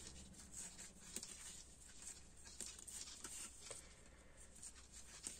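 Faint, irregular small clicks and soft rustling of knitting needles and yarn as purl stitches are worked.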